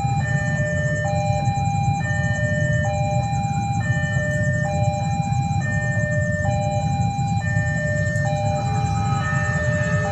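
Railway level-crossing warning signal sounding its repeating electronic chime, a few tones stepping in turn about once every two seconds, over a steady low rumble.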